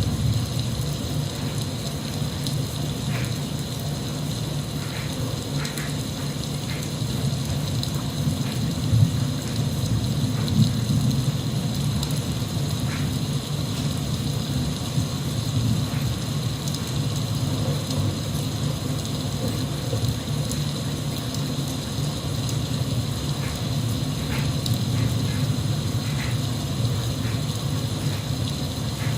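Steady rain sound with a deep low rumble under it and occasional single drops ticking through.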